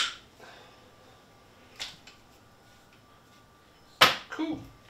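PEX crimp tool and brass-fitted PEX pipe fittings being handled. A sharp click comes right at the start, a light tap just before two seconds in, then a loud knock near the end followed by a few smaller clatters.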